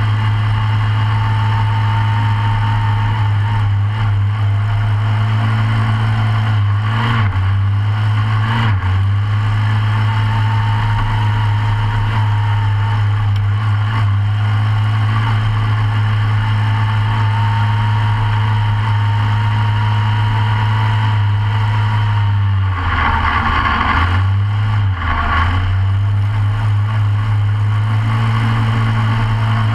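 Briggs & Stratton racing engine of a short course off-road kart, heard from on board, running hard at a steady pitch. It dips briefly about seven and nine seconds in, and again for about two seconds near the end, with rattling and thumps from the kart each time.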